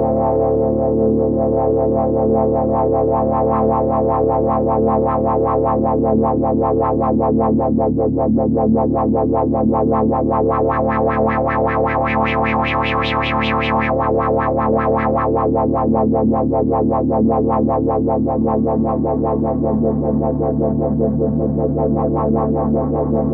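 Moog Matriarch analog synthesizer playing a fast repeating sequence of short notes over a steady low bass note. The sound brightens sharply around the middle as the filter is opened, then darkens again.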